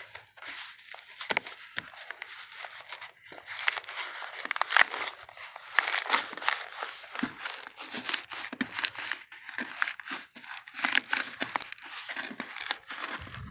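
Rubber weatherstrip being pried and peeled up from a car's steel T-top center rail: an irregular run of crackling, scraping and small snaps.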